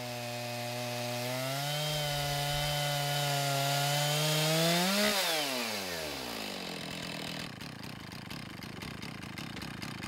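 Chainsaw on a Norwood PortaMill chainsaw mill ripping a log lengthwise, the engine running steadily under load. Its pitch climbs over a few seconds as the saw finishes the cut, then about five seconds in the engine winds down quickly and fades out.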